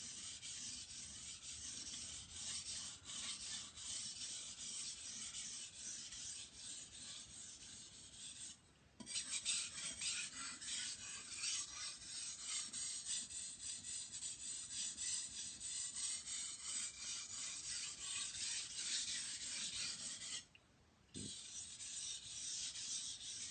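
Steel knife blade stroked back and forth over a wet 3000-grit water stone with light pressure: a steady run of scraping strokes, broken twice by short pauses, about nine and twenty-one seconds in.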